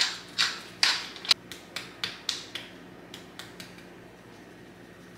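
Hand twist spice grinder being turned: a run of short, gritty grinding strokes, about two a second at first, then quicker and fainter, stopping about three and a half seconds in.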